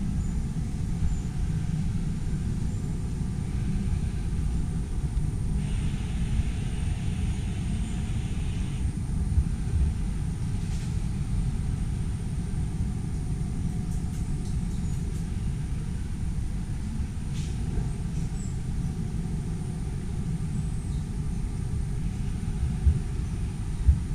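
A steady low rumble throughout, with a faint steady high-pitched whine above it and a few faint clicks.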